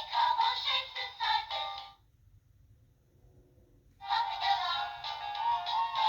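Tinny electronic song with sung melody from a children's push-button sound book's small speaker; it stops about two seconds in and starts again about two seconds later.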